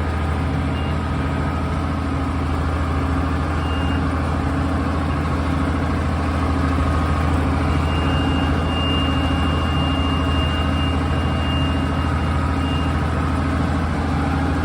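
Tractor engine running steadily while pulling a planter, a continuous low drone. A thin high steady tone sounds for several seconds past the middle.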